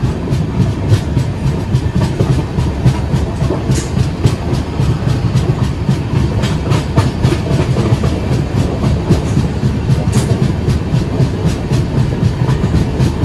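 Passenger train coaches running at speed, heard from beside the coach: a loud steady rumble of wheels on track, with irregular clicks of the wheels over rail joints throughout.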